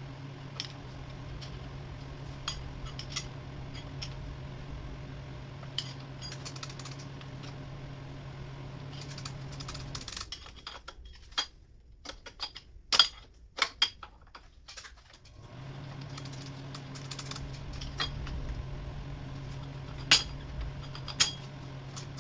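Metal tools and small metal parts clinking and tapping in short, scattered knocks, over a steady low hum. The hum stops about ten seconds in and returns about five seconds later.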